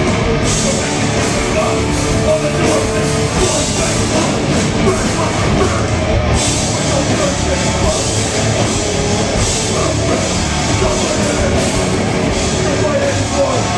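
Hardcore punk band playing live: distorted electric guitar and a drum kit, loud and continuous.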